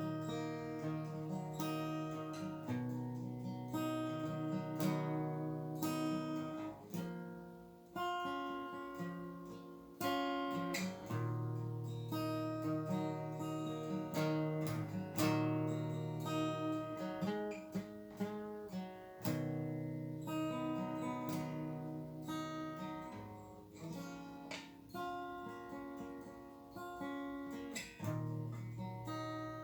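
Acoustic guitar played solo: picked notes over held bass notes that change every second or two, with some strummed chords.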